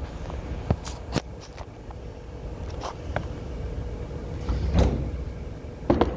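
A phone set down on a wooden workbench with a couple of sharp clicks, then handling knocks, a heavy thud a little before five seconds, and a sharp metal-on-wood knock near the end as a heavy aluminium fixture plate is lifted and set onto the butcher-block table. A steady machine-shop hum runs underneath.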